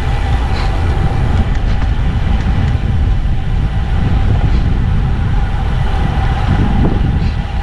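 Wind buffeting the microphone of a cyclist's camera while riding: a loud, steady low rumble.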